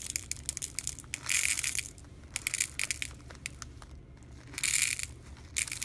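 Small clear plastic beads poured from a plastic packet into a small plastic cup, coming in several short rattling bursts with scattered single clicks of beads between them.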